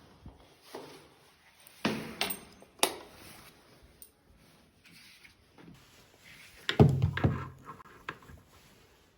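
Household objects being handled and set down: a few separate knocks about two and three seconds in, then the loudest cluster of knocks and clatter about seven seconds in.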